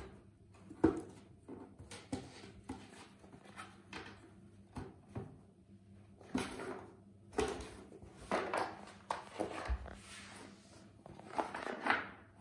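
A cat batting, scraping and pushing about an empty cardboard carton on a woven rug: irregular rustling and scraping of cardboard and claws, broken by soft knocks, with a sharp knock about a second in.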